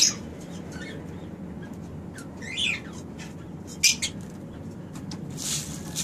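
Pet parrots chirping, with one short chirp about two and a half seconds in and a sharper one near four seconds, over low steady background noise. Near the end, a rustle of seed being stirred by hand in a steel bowl.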